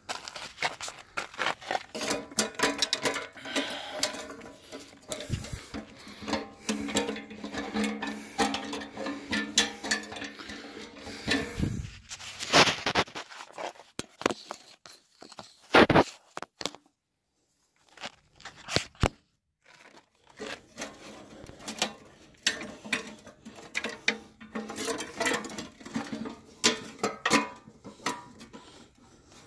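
Irregular clicks, clinks and rubbing of hands and tools on a reel mower's small engine and chain drive. A steady low hum runs under the first twelve seconds or so, then cuts off.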